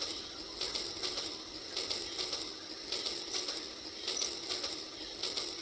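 Small battery-powered toy running, its gears clattering with a clicking burst that repeats about once a second over a steady motor hum.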